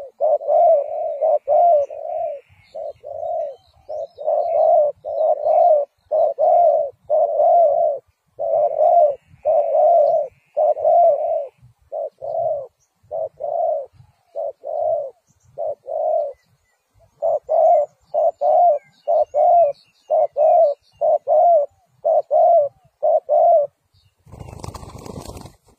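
Spotted dove cooing: a long run of short, low coos, about one every two-thirds of a second, broken by brief pauses. The cooing stops a couple of seconds before the end, and a short, quieter rustling noise follows.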